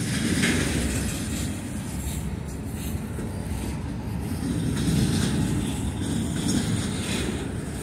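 Freight cars rolling past on steel wheels: a steady low rumble of wheels on rail, with a few brief higher-pitched sounds now and then.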